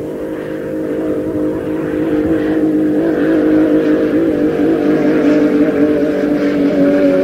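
Inboard racing hydroplane engine running flat out near redline on a speed run, growing louder over the first few seconds as the boat approaches and then holding at a steady, slightly wavering pitch.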